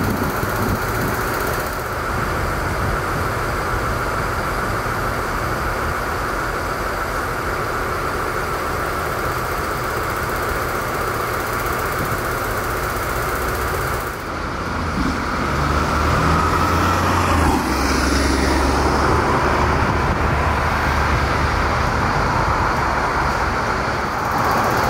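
Heavy construction machinery running steadily. About fourteen seconds in, a deeper engine hum comes in and shifts in pitch.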